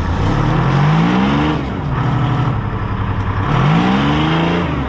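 Heavy well-drilling truck's diesel engine revving hard twice, its pitch climbing each time, with steadier running in between, as the stuck truck strains to drive free.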